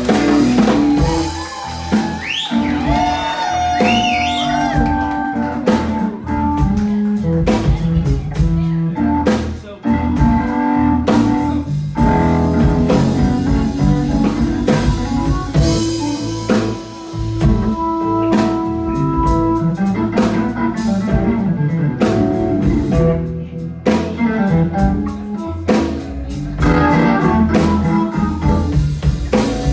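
Live electric blues band playing: electric guitar over a drum kit and rhythm section, continuous and loud.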